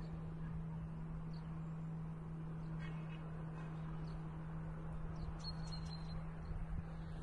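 Outdoor garden ambience: a steady low hum under a faint hiss, with a few short, faint bird chirps about five and a half seconds in.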